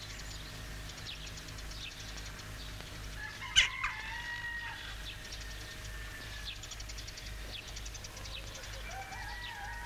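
Rural ambience: small birds chirping in short repeated high notes, and a rooster crowing, over a low steady hum. A single sharp click about three and a half seconds in is the loudest sound.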